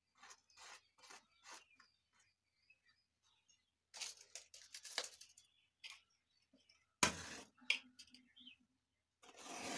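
Light rustling and rattling as paper and matchboxes are handled, then a match struck about seven seconds in with a short flare. Near the end a louder hiss rises and lasts about a second as the heap of ground matchhead powder ignites and burns off.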